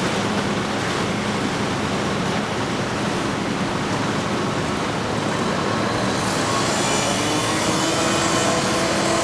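Palm Beach PB45 motor yacht running past under power: a steady rush of churning wake with its engine drone underneath, the drone growing clearer over the last few seconds.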